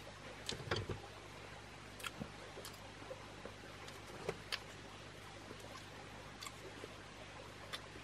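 Sparse light clicks and taps of bamboo being handled: chopsticks and a split-bamboo grilling clamp, with a cluster of soft knocks just under a second in, over a faint steady low hum.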